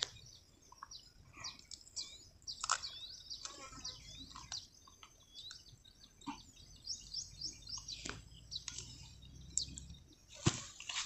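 Small birds chirping and calling: many short, high, overlapping chirps and quick up-and-down whistles, with a couple of sharp clicks about eight and ten and a half seconds in.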